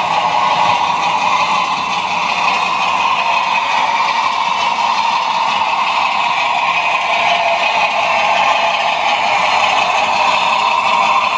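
Model railway diesel locomotive sound through a small loudspeaker: a steady engine drone with a light rattle of model wheels on track.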